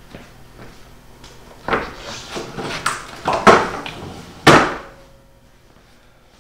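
Craftsman 6-inch jointer on its steel stand being shifted off a wooden board onto a concrete floor: a run of scraping and knocking from the stand's legs, ending in one loud thump as it is set down, with a brief faint metallic ring after.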